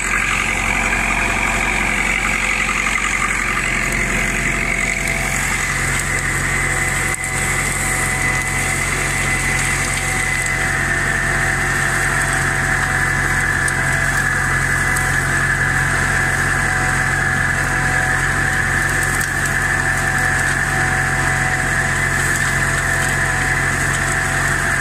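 IMT 560 tractor's diesel engine running steadily under load, pulling a disc harrow through ploughed soil, with a high steady whine over the engine note.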